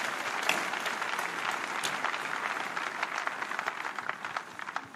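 A crowd applauding, many hands clapping at once, dying away near the end.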